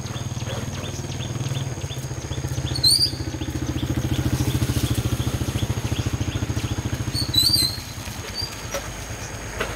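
A small engine running with a rapid, even low pulse, which drops away about three-quarters of the way through. Two short high chirps cut in, about three seconds in and again shortly before the engine fades.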